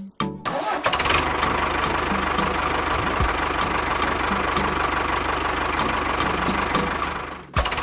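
Small motor of a DIY mini tractor running steadily with a faint whine, starting about a second in after a few short tones. It drops away briefly near the end, then picks up again.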